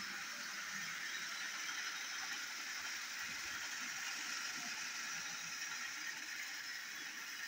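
Battery-powered toy train engine running along plastic track, pulling a string of trucks: a steady whir of the small gear motor with a light rattle of wheels on the track.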